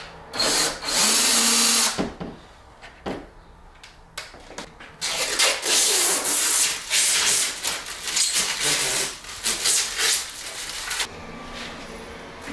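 A DeWalt cordless drill runs for about a second and a half, driving into the back of a picture frame. From about five seconds in, a clear plastic sheet crinkles and rustles for several seconds as it is handled and wiped.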